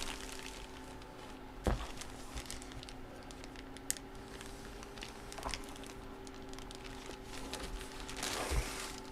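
Quiet handling of trading-card packaging: light crinkling with a few soft taps, over a faint steady hum.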